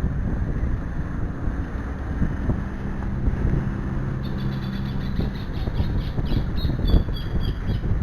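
Storm wind rushing and buffeting the microphone. A low steady hum runs through the middle, and a fast, evenly repeating high chirping starts about halfway through.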